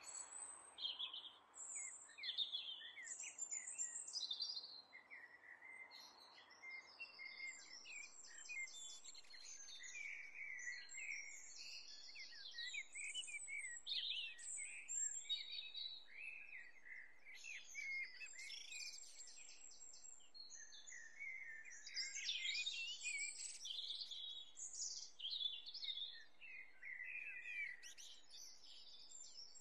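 A chorus of many small birds singing and chirping, with overlapping whistles and fast trills, over a faint steady hiss.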